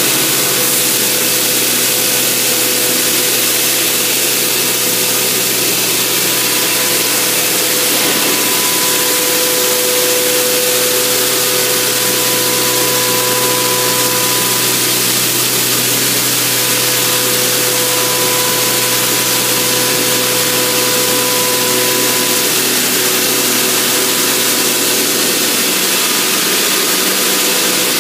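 Blastrac vacuum blasting machine running continuously: a loud, steady rushing hiss over a constant motor whine.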